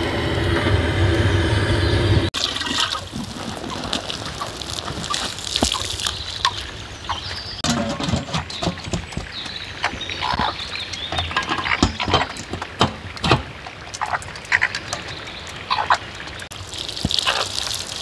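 Water trickling and spattering in many short drips and splashes, after a louder steady rushing noise cuts off abruptly about two seconds in.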